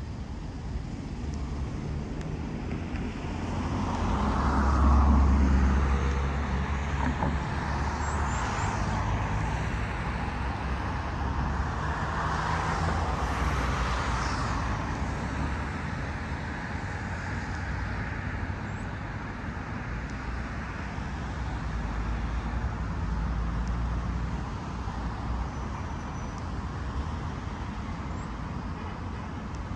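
Road traffic going by in a steady rumble, with passing vehicles swelling and fading; the loudest passes about five seconds in, another around twelve to fourteen seconds.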